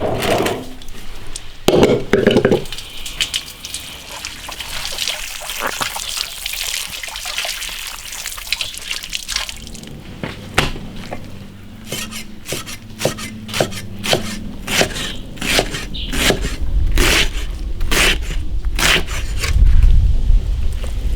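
Water splashing and dripping as food is washed by hand in a basin, then a run of sharp knocks and clicks, several a second, over the second half, with a low rumble near the end.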